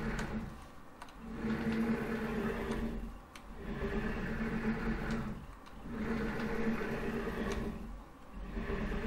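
Homemade CNC router's axes jogging under Teknic ClearPath servo motors: a steady motor whine in a series of moves about two seconds long, each followed by a short pause. The motion runs smoothly with no binding.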